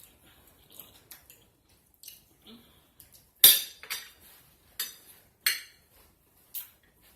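Cutlery clinking and scraping against a dish during a meal: several sharp separate clinks, the loudest about halfway through.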